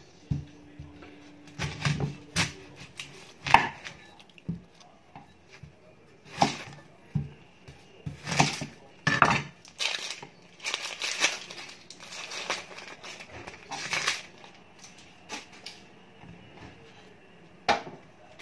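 A white onion trimmed with a knife on a wooden cutting board and then peeled by hand: the dry, papery skin crackles and rustles, with scattered sharp clicks and knocks of the knife and onion against the board.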